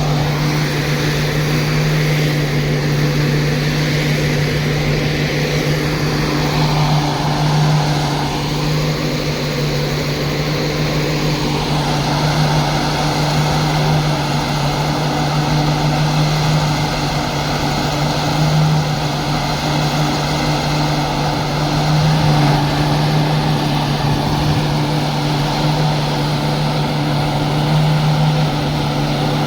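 Greaves CPCB-II diesel generator set of a 2014-built end-on-generation (EOG) railway power car running steadily, with a strong low hum that holds one pitch throughout. The uploader calls this a faulty sound.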